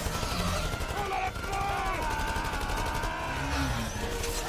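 Continuous rapid machine-gun fire with a wavering held tone over it.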